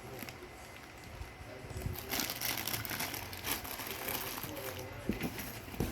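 Plastic packaging crinkling and rustling as parts are handled and unwrapped, with scattered small clicks and a sharper knock near the end; faint voices in the background.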